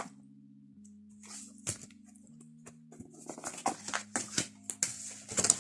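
Soft background music of sustained low notes that change every second or so, with scattered light clicks and rustles of handling over it.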